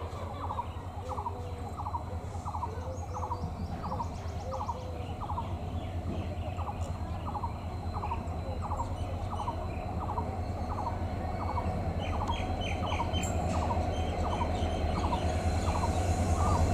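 EMD GT46PAC (WDP-4) diesel locomotive's two-stroke V16 engine running with a low, steady rumble that grows louder as it approaches slowly. Over it a bird repeats a short note about every two-thirds of a second.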